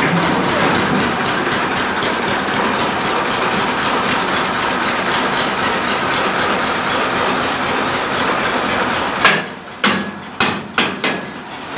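Tractor engine running steadily. About nine seconds in the running noise drops away, and five sharp metal clanks follow as the drive shaft is fitted to the tractor's power take-off.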